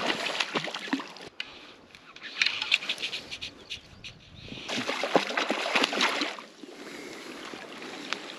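Hooked trout thrashing at the surface of the water, in uneven bursts of splashing, loudest at the start and again about two-thirds of the way through.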